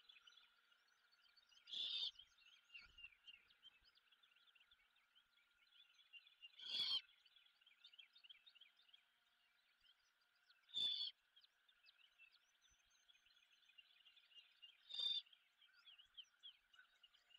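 Great horned owlet giving its harsh, raspy begging screech four times, about four seconds apart. Under the calls runs a faint, steady chorus of small chirps.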